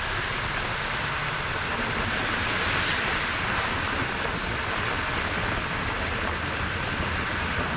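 Steady rush of wind and road noise in a moving bus, with a low rumble underneath.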